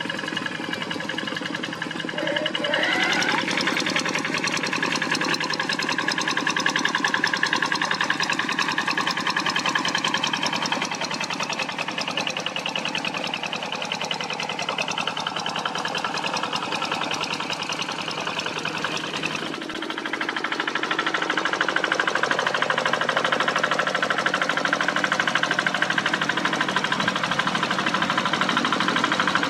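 Single-cylinder diesel engine of a two-wheel walk-behind tractor running steadily under ploughing load, with a rapid even firing beat. It grows louder about three seconds in, dips briefly near twenty seconds, then runs louder again.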